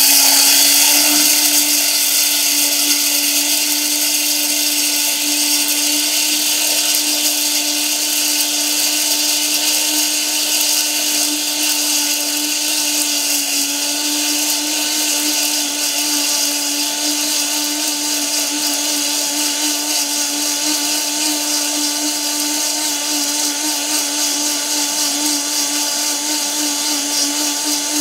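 High-speed multifunction grinder running at full speed, grinding rice into powder: a loud, steady motor tone with a strong hiss above it.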